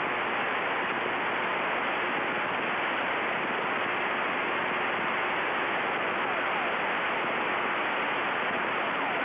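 Steady hiss of radio static through the aircraft intercom, from the direction-finder receiver listening for a practice ELT, with the beacon's tone too faint to pick out.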